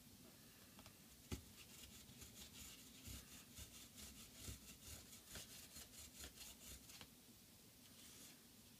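Racket stencil ink applicator bottle dabbed again and again onto a stencil card over the racket strings: faint, quick soft taps with a light rubbing, about three or four a second, stopping about seven seconds in. A sharp click sounds about a second in.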